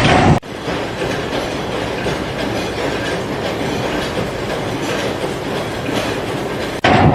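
Steady mechanical rumble with a running clatter, like heavy wheels rolling on track or machinery running. It starts suddenly about half a second in and stops suddenly near the end.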